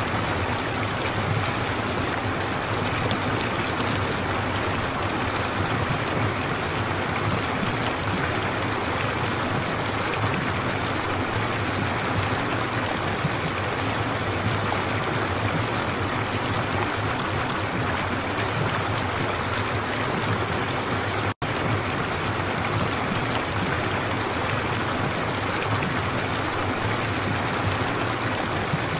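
Steady running-water sound like a flowing stream, used as the masking track of a subliminal-affirmation recording. It cuts out for a split second about two-thirds of the way through.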